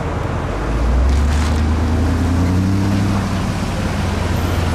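City street traffic: a passing vehicle's engine rumbles low and swells about a second in, its pitch rising as it accelerates.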